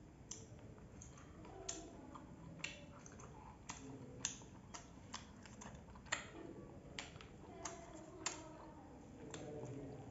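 Faint, scattered light clicks and taps, about one a second, as food is dipped by hand into a small steel bowl of curry broth. Near the end, a soft pour of the broth over puffed rice in a steel plate.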